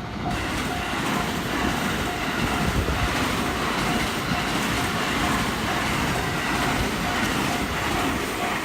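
Electric train running past a Japanese railway level crossing, its wheels rumbling and clattering on the rails, while the crossing warning bell keeps ringing at about two strikes a second. The train noise swells in at the start and eases off near the end.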